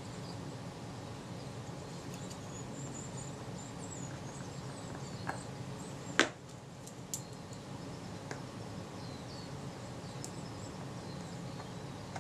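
Small metal parts of a camera lens focusing mount being handled: one sharp click about six seconds in and a few fainter ticks, as a small brass wedge is worked into place with tweezers and fingers. Under it, a steady low hum and faint high chirps.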